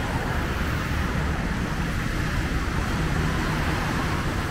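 Steady traffic noise from a busy, wet multi-lane road, with cars, a bus and motorbikes passing.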